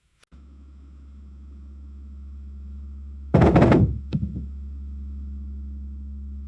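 Muffled TV sound through a wall: a steady low hum that slowly grows louder, broken about three and a half seconds in by a loud muffled burst and a click, then cutting off sharply.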